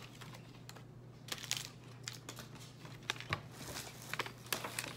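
Toy packaging wrapper being peeled and handled: a run of small irregular crinkles and clicks, sparse at first and busier from about a second and a half in.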